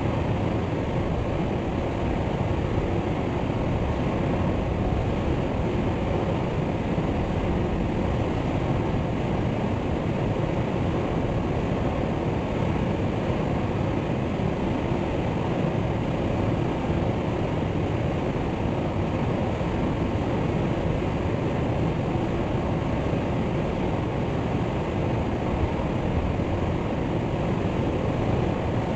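Waterfall: a steady, deep rush of falling water, even throughout, with no birdsong.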